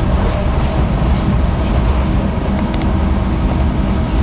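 Tram running along the track, heard on board: a steady low rumble of wheels on rails and running gear.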